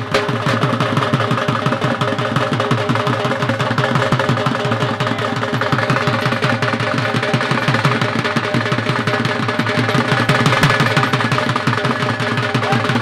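Drums beaten in a fast, unbroken roll, with steady held tones underneath, the accompaniment to a horse dance.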